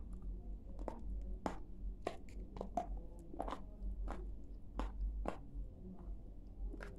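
Close-up chewing of hard, dry eating clay: about a dozen crisp, irregular crunches as the chunks break between the teeth, thinning out after about five seconds with one last crunch near the end.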